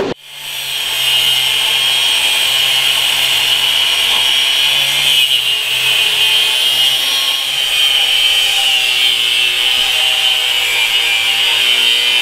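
Angle grinder with a cut-off wheel cutting through an old steel mower blade clamped in a vise: it spins up over about the first second, then runs steadily with a high-pitched grinding sound.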